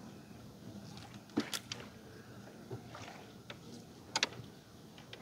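A few short, sharp knocks and clicks over a low steady background rumble, the loudest a quick double knock about four seconds in.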